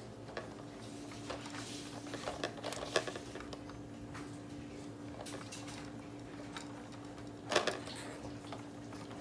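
Scattered plastic clicks, taps and knocks of a baby's activity-jumper toys being handled and slapped, with sharper knocks about three seconds in and again near the end. A steady low hum runs underneath.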